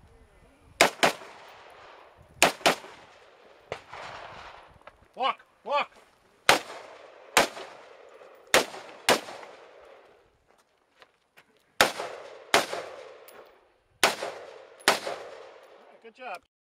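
Rifle shots fired in a run-and-gun stage, about a dozen sharp reports, often as quick double taps, each followed by a short echo, with pauses of a second or two between groups as the shooter moves.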